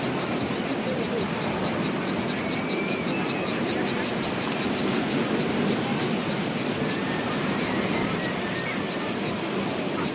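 Insects trilling steadily in a fast-pulsing high chirr, over a continuous low wash of beach surf.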